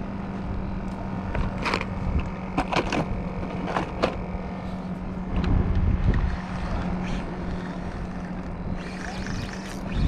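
Electric kayak trolling motor humming steadily under gusty wind noise on the microphone, with a few sharp clicks and knocks a couple of seconds in.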